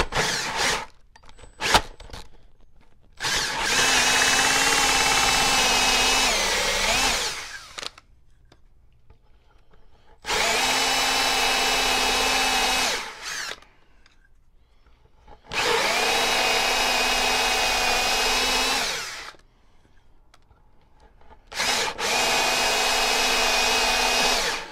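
Milwaukee cordless drill spinning a 2 1/8-inch Lenox hole saw into a wooden post. It cuts in four steady runs of a few seconds each, winding down at the end of each, with pauses between them to clear shavings. A few short knocks and clicks come near the start.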